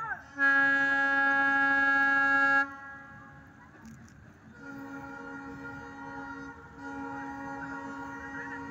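Railway locomotive horn sounding: one loud blast lasting about two seconds near the start, then, after a pause, two longer and quieter blasts.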